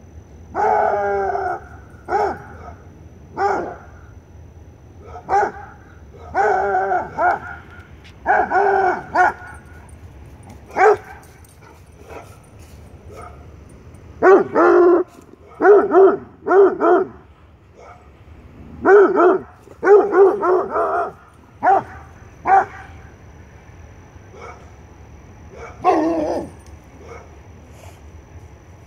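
Young black and tan coonhound baying: repeated drawn-out bark-howls, some held for about a second, others coming in quick runs of three or four, with pauses of a few seconds between bouts.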